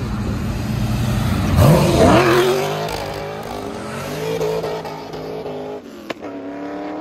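A performance car's engine and exhaust under hard acceleration, loudest as it passes about two seconds in, then rising in pitch through the gears and fading as it pulls away down the road. Another engine revs up near the end.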